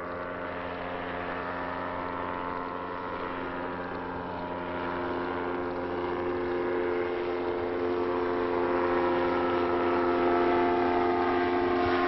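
Engine and propeller of a motorized hang glider droning in flight: a steady, pitched hum that grows gradually louder through the second half.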